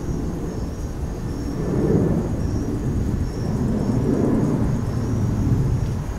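Wind buffeting the microphone in low gusts, swelling about two seconds in and again after four seconds. Crickets chirp steadily and faintly behind it in a high repeating pattern.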